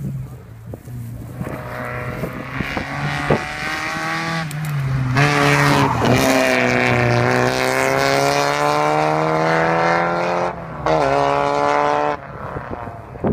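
Yellow Volkswagen hatchback accelerating hard past at speed, its engine note climbing in pitch through the gears with two brief shifts. It is loudest as the car passes close about six seconds in, and the note drops away near the end as it goes off down the track.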